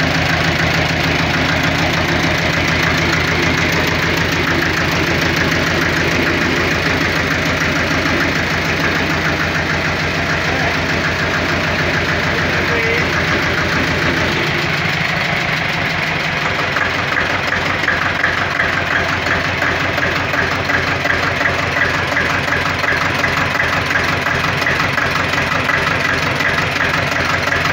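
Old stationary engine running steadily, with a quick, even mechanical clatter. About halfway through the deep hum drops away and the clatter comes forward.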